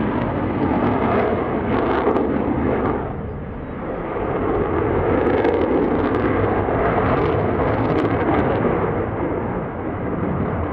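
F-15C Eagle's twin Pratt & Whitney F100 turbofans at display power in a banking pass, a heavy jet roar with a few sharp crackles. It eases briefly about three seconds in, then builds again.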